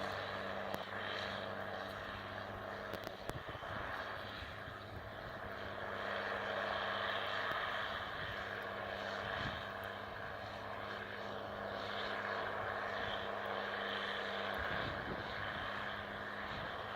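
Combine harvester running steadily while harvesting corn: a constant engine drone with a low hum and a wider machinery hiss over it, and a few small clicks about three seconds in.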